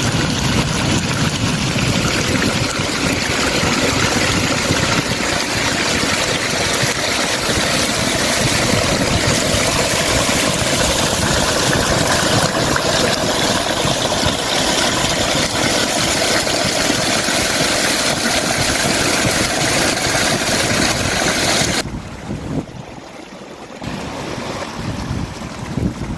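Water rushing loudly and steadily. About 22 seconds in it drops suddenly to a much quieter flow.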